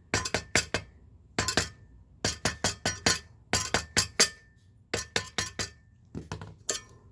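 Light, quick mallet taps on the small metal oil cap of a Whirlpool refrigerator fan motor, seating the cap back over the re-oiled bearing. The taps come in short clusters of three to five, each a sharp clink, some with a brief ring.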